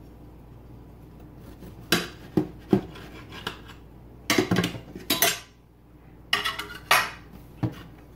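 A knife scraping and clinking against a plate as it slices through a loaf of nut and chocolate chip banana bread. It comes as several quick runs of sharp strokes, the first about two seconds in and the last near the end.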